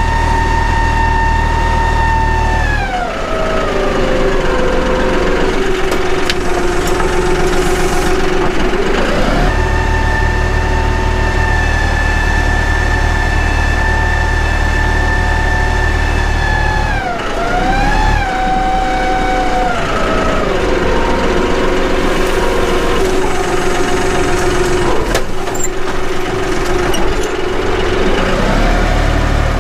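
John Deere 5055E tractor's three-cylinder diesel engine working while pushing dirt to backfill a trench. Its pitch drops about three seconds in, climbs back around nine seconds, falls again past the middle and rises near the end as engine speed goes down and up.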